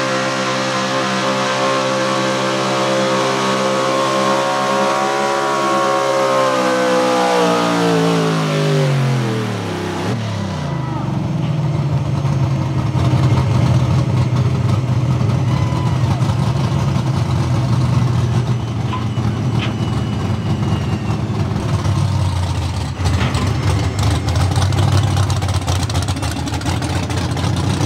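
Pickup's small-block V8, built for the 440 cubic inch pulling class, at full throttle dragging a pulling sled and held at high revs. About seven seconds in the revs fall away as the pull ends. The engine then runs low and uneven at idle and light throttle.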